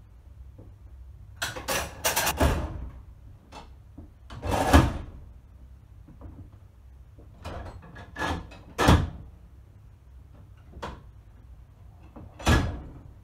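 Mechanical signal box lever frame being worked: heavy metal clunks and rattles of levers and their catch handles being thrown, in about six separate bouts.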